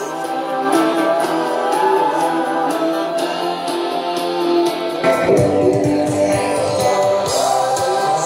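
Rock song with electric guitar and singing, played from a vinyl record on a suitcase turntable through a pair of W-King Bluetooth speakers. About five seconds in, as the volume knob is turned, the sound gets fuller, with deep bass coming in.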